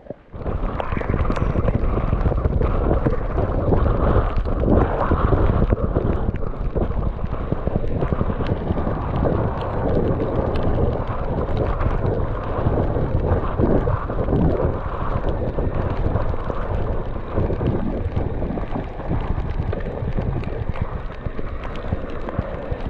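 Wind buffeting a GoPro action camera's microphone on a moving e-bike: a loud, steady rumble with many short crackles, starting abruptly about half a second in.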